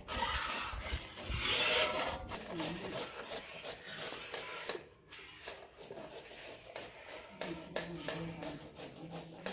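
Repeated rasping, scraping strokes of hand kitchen work, busiest in the first two seconds and fainter from about five seconds in.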